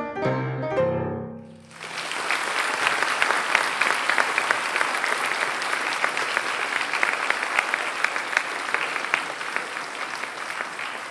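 The last notes of the dance music die away about a second and a half in, then an audience applauds, the clapping easing off slightly near the end.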